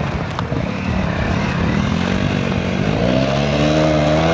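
Off-road motorcycle engine running under throttle, its pitch climbing about halfway through and held high near the end.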